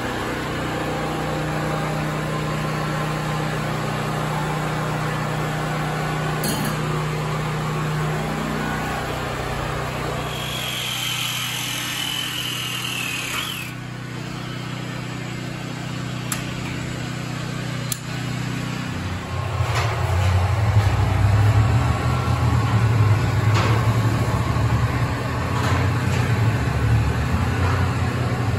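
Steady low engine drone that grows louder and deeper about two-thirds of the way through. A thin high whine sounds briefly in the middle, and there are a few sharp clicks.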